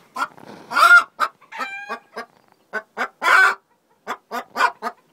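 Hen clucking in a quick string of short clucks, with louder drawn-out squawks about a second in and again past the middle, and one clear held note just before two seconds in.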